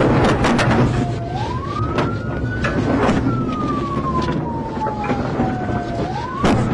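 Siren wailing, its pitch rising quickly and then falling slowly in a cycle of about five seconds, rising twice. Underneath are a steady low rumble and scattered sharp clicks.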